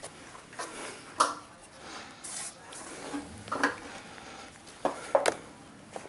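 Scattered knocks and rubbing against wood, with four or five sharp knocks, as someone climbs up through a wooden attic access hatch with gloved hands on the frame.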